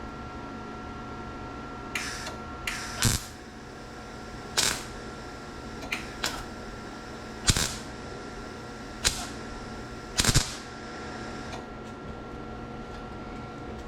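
MIG welder laying short tack welds on a steel door-skin patch panel: about nine brief crackling buzzes, irregularly spaced, over a steady hum.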